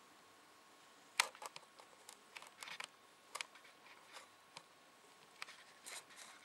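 Scattered light clicks and taps of handling noise, the sharpest about a second in, with faint room noise between them.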